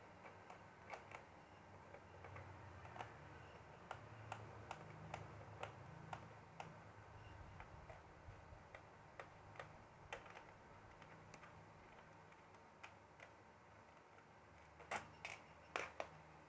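Faint, irregular small clicks and ticks of a small Phillips screwdriver working the screws of a ThinkPad laptop's plastic case, with a few louder clicks near the end.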